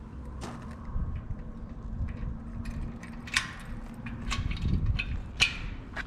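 Walking footsteps on an outdoor path, about one step a second, over a low rumble, with a faint steady hum through the middle.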